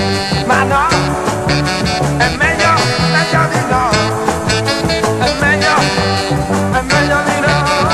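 A 1968 Italian pop record playing an instrumental passage: a lead melody with bending notes over a steady, pulsing bass and drum rhythm.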